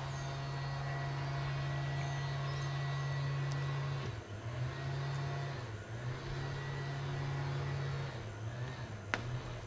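Gas leaf blower engine running steadily, its note dipping briefly about four and six seconds in and wavering near the end. A single sharp click near the end.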